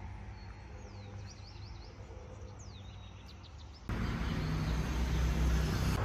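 Small birds calling in quick falling chirps, several in a row twice, over a low steady hum. About four seconds in it cuts sharply to louder street noise with a low traffic rumble.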